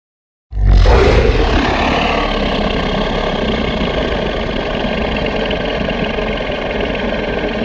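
A loud, steady, deep rumbling sound effect that starts suddenly about half a second in, holds for about seven seconds, then fades out.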